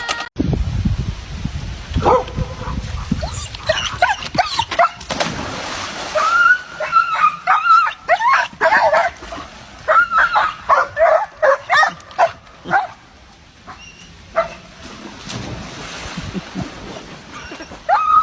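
A dog whining and yipping in a string of short, high calls, with a longer wavering whine about six seconds in.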